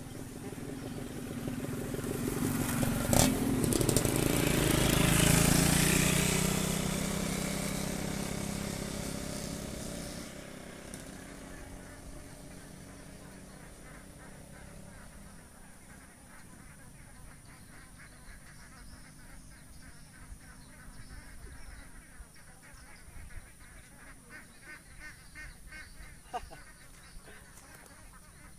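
A motorbike passing close by: its engine grows louder over the first few seconds, is loudest about five seconds in, and fades away by about twelve seconds.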